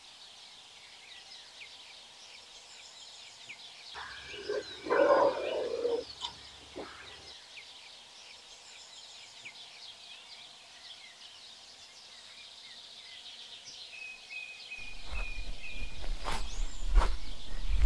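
Countryside ambience of birds chirping throughout, with one louder animal call about four seconds in. Near the end a low wind rumble rises, with crunching footsteps on a gravel road.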